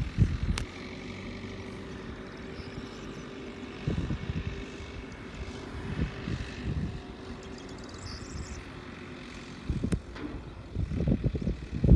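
A distant tractor engine running steadily, with gusts of wind buffeting the microphone every few seconds; the gusts are strongest near the end.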